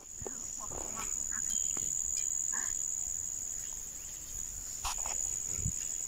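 Insects chirring in one steady, high-pitched buzz, with a few faint soft rustles.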